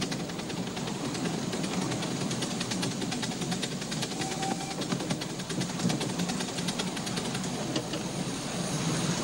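7¼-inch gauge miniature train running along its track, heard from the train itself: a steady, fast clatter of wheels and running gear.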